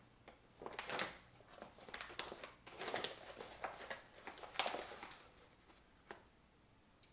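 Faint handling noises: a run of rustles, clicks and knocks as supplement packaging and a drink are picked up and used. The sounds are loudest about a second in and again after four and a half seconds, with a couple of single clicks near the end.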